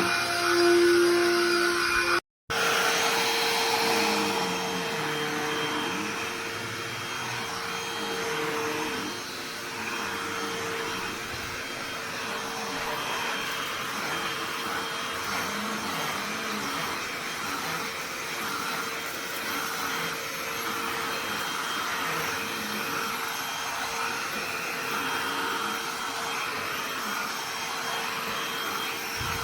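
BLACK+DECKER Dustbuster cordless handheld vacuum running steadily, a rushing hiss with a steady motor whine. It follows a different, louder sound that cuts off abruptly about two seconds in.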